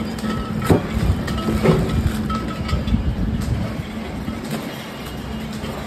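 Steady machine hum with a low rumble, broken by a few sharp knocks and crinkles from plastic-wrapped dishwash bars being handled and stacked.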